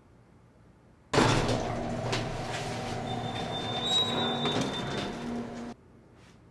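Subway train running: a loud, steady rushing noise with a droning hum and a thin high whine in the middle, cutting in suddenly about a second in and cutting off abruptly near the end.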